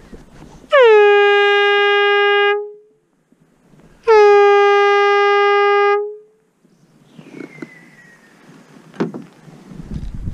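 Two long blasts of an air horn, each about two seconds, the pitch dipping at the start of each and then holding steady. It is the signal for a pause in the fishing competition.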